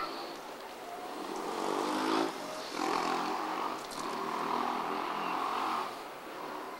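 Steam locomotive C58 363 working slowly, letting out about three long hissing puffs of steam, each a second or more long.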